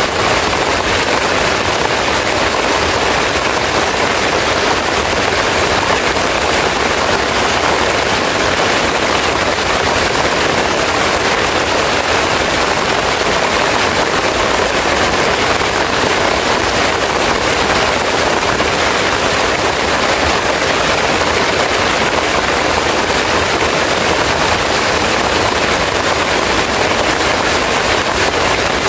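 Heavy rain falling steadily: a loud, even hiss with no breaks.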